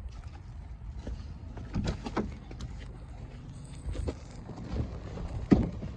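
Scattered, irregular knocks and thumps, the loudest about five and a half seconds in, over a low steady rumble.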